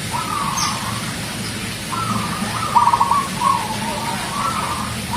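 Zebra dove (perkutut) cooing: a run of rolling, trilled coo phrases, each ending in a held note, repeated about every second. A brief high whistle sounds once about half a second in.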